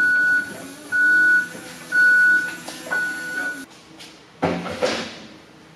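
Toyota forklift's backup alarm beeping four times, about once a second, then stopping. A short rush of noise follows about a second later.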